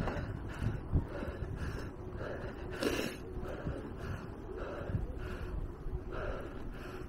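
A cyclist's heavy, rhythmic panting, about two breaths a second, from the hard effort of climbing a very steep uphill on an electric bicycle, over low wind and road rumble.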